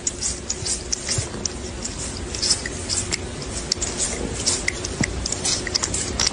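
A cat chewing crunchy food, a fast, irregular run of crisp crunches.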